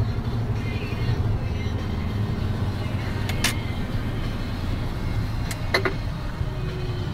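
Mercedes-Benz Actros truck's diesel engine and road noise droning steadily inside the cab. A few sharp clicks come about three and a half seconds in and again near six seconds.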